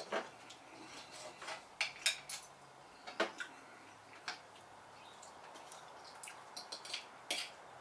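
Fork and knife clinking and scraping against a plate while food is cut, in a dozen or so short, irregular clicks.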